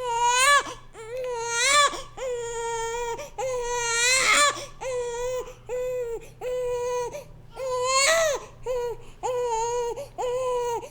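Infant crying: about a dozen short, pitched wails in quick succession, each rising and falling in pitch, with the loudest wails near the start and about eight seconds in. The crying starts and stops abruptly.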